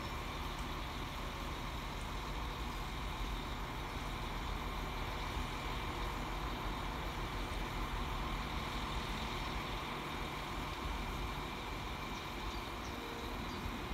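Class 195 diesel multiple unit drawing slowly towards the platform, its engines running with a steady rumble at an even level.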